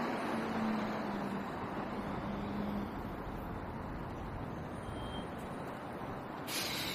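Steady rumble of road traffic on a busy city street. A vehicle's engine note drops in steps over the first three seconds, and there is a short hiss near the end.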